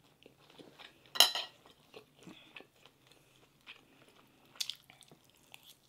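Spoons and forks clinking and scraping on plates with soft chewing, during a meal of rice and squid adobo. A sharp clink about a second in and another past four seconds stand out over the quieter clicks.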